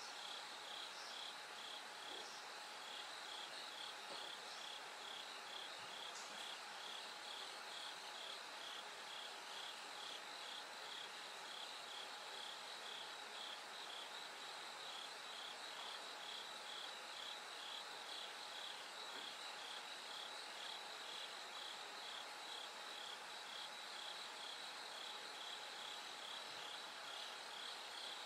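Bell crickets singing: a steady run of short, high, ringing chirps, about two a second, over a faint continuous high trill and background hiss.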